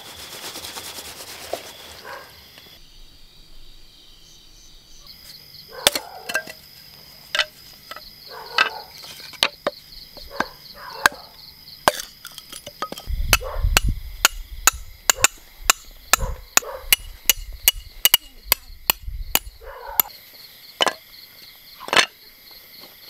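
Firewood being chopped by hand: a run of sharp wooden chops, spaced out at first, then quickening to about three a second with dull thuds underneath, before slowing again near the end. Crickets chirp steadily behind.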